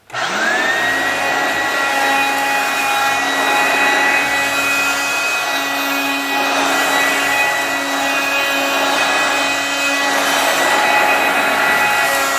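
A 1990s Eureka Bravo vacuum cleaner switched on, its motor whining up to speed within the first second, then running steadily as it vacuums dirt off carpet.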